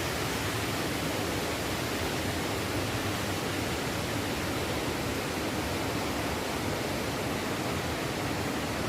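Valley stream water rushing with an even, unbroken noise.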